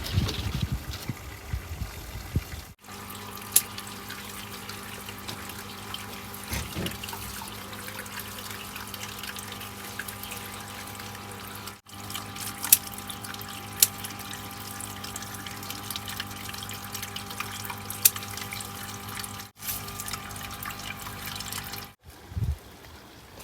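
Water running and trickling, with a steady hum and a few short clicks. The sound breaks off and resumes at several cuts.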